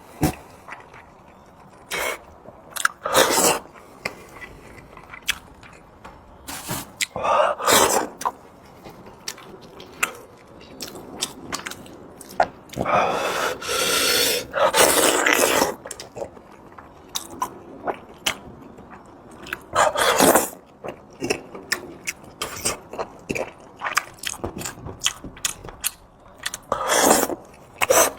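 A person eating close to the microphone: chewing and mouth clicks, with a few louder, longer noisy stretches of biting or slurping, the longest about halfway through.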